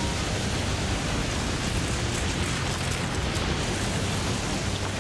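Cartoon sound effect of a steady rumbling, rushing noise: rock and earth being torn and dragged by a giant machine's cables.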